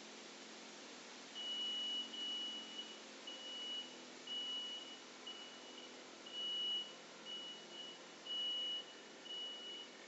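Electronic beeping: a steady high-pitched tone repeating about once a second, each beep about half a second long, starting about a second in, over a faint steady hum.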